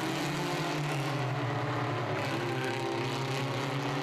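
Engines of SsangYong Actyon race utes running hard on track, a steady drone whose pitch wavers slightly.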